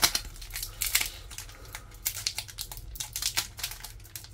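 Foil wrapper of a Pokémon booster pack crinkling and crackling in the hands as it is handled and worked open at the sealed top, in quick irregular clicks, with a sharp crackle at the very start.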